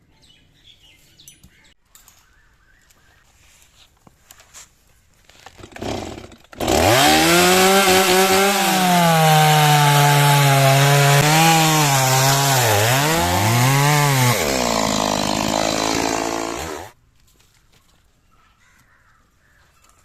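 Stihl two-stroke chainsaw starting up about six and a half seconds in and running at high revs for about ten seconds. Its pitch dips and climbs back a few times, then it cuts off suddenly.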